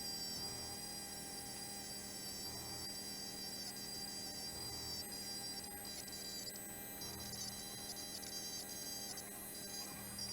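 Small Drill Master rotary tool running with a steady high whine, its brass wire brush wheel polishing an aluminum knife handle, with brief patches of scratchy hiss as the brush works the metal.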